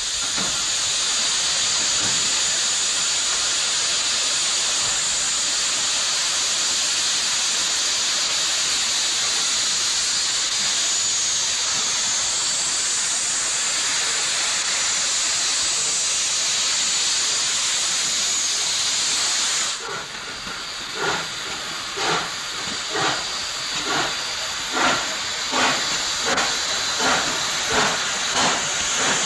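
PKP Ol49 steam locomotive starting a train. For about twenty seconds there is a loud, steady hiss of steam blowing from the cylinder drain cocks. Then exhaust chuffs begin, slow at first and quickening as the engine gets under way.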